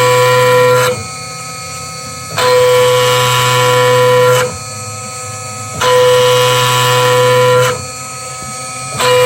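DIY CNC router spindle running at about 7000 rpm while an end mill cuts a pocket by trochoidal milling, 5 mm deep with a light 0.4 mm stepover. The cutting noise rises for about two seconds at a time and drops back to a quieter spindle hum for about a second and a half, in an even cycle that repeats about three times as the tool moves into and out of the cut.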